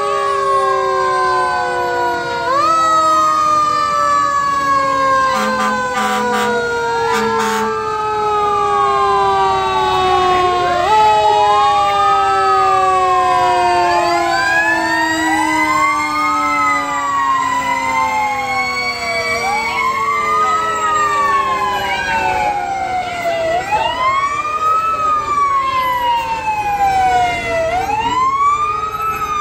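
Several fire truck sirens wailing at once, each rising and falling about every three seconds, with long slowly falling tones underneath.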